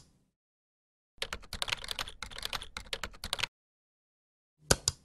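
Typing on a computer keyboard: a quick run of keystrokes lasting about two seconds, then two sharp clicks near the end.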